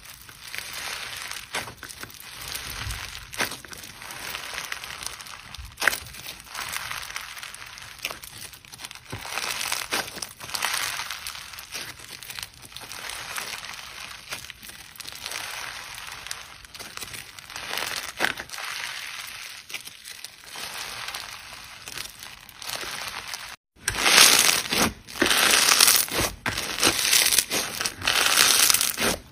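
Crunchy bead-filled slime squeezed and kneaded by hand: a continuous crinkling, crackling crunch of many small clicks. After a brief break near the end the crackling is louder.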